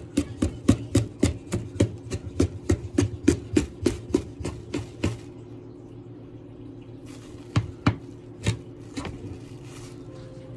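Knife chopping jalapeño on a cutting board: a quick, even run of sharp chops, about five a second, for roughly five seconds, then a pause and four more separate chops.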